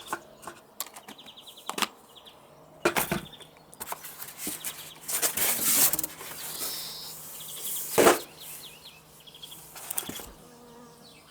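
Meat grinder parts and packaging being handled while unboxing: rustling with scattered knocks and clicks, the loudest knock about eight seconds in.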